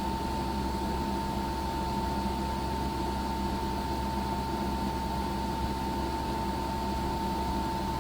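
EcoFlow Wave portable air conditioner running in cooling mode with its fan on the highest setting, heard directly in front of its air outlet. The sound is a steady rush of air with a constant mid-pitched whine and a low hum.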